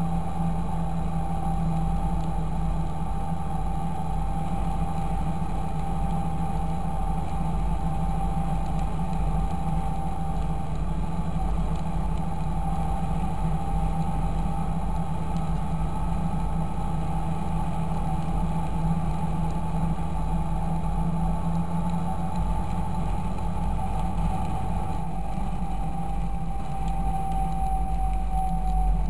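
Fendt 926 Favorit tractor's six-cylinder diesel running steadily, a deep engine hum with a thin high whine on top. The whine drops slightly in pitch near the end.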